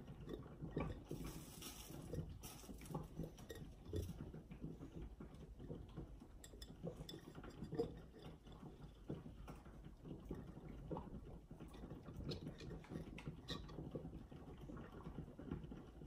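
Small pickling cucumbers being packed by hand into a glass mason jar: faint knocks and rubbing of cucumbers against the glass, with an occasional light clink of the jar on the counter.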